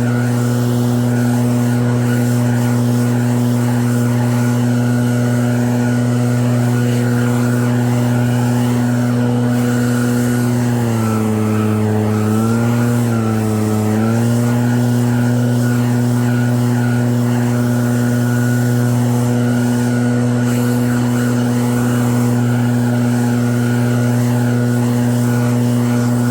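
Engine of an EB7660RED snowblower running steadily at speed. Its pitch sags twice briefly about halfway through, then recovers.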